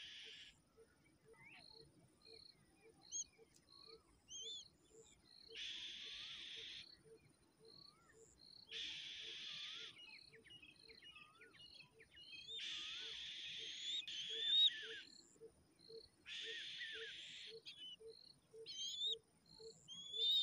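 Outdoor wild animal sounds. Buzzing bursts about a second long come five times, the longest near the middle at about two seconds, over a faint steady pulse about twice a second. Scattered short, high rising and falling chirps come between and over the bursts.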